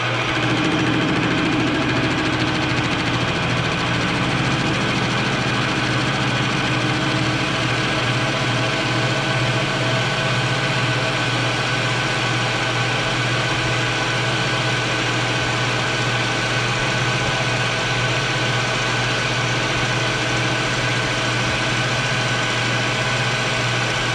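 Grizzly G0776 metal lathe running steadily under power feed, its motor and gears humming as the tool takes an automated turning pass along a cold-rolled mild steel bar.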